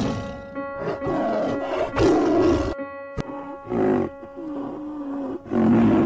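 White tigers snarling and growling at each other in a series of short, rough bursts, over background music with steady held tones.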